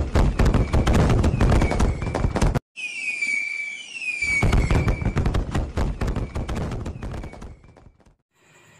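Fireworks sound effect: dense, rapid crackling bangs that break off abruptly about two and a half seconds in. It starts again with several falling whistles of rockets, then more crackling bursts that fade out near the end.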